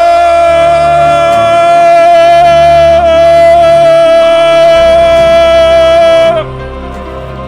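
Music with a singing voice holding one long, steady high note over a low accompaniment. The note stops about six seconds in and the music drops much quieter.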